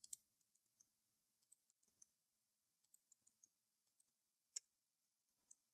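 Near silence broken by a few faint, sparse clicks from a computer mouse and keyboard being worked, the loudest about four and a half seconds in.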